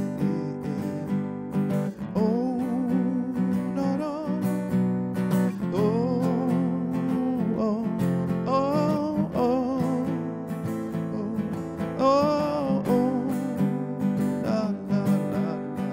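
Takamine steel-string acoustic guitar strummed and picked in a slow ballad, with a wordless vocal line gliding over it several times.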